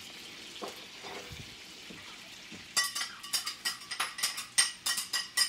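Butter sizzling quietly in a stainless steel frying pan. About halfway through, chopped shallots go into the pan and a metal utensil starts clinking against it: several sharp, ringing clinks a second.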